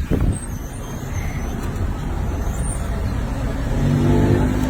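Street traffic rumble: a motor vehicle's engine hum grows louder toward the end, as if it passes close by.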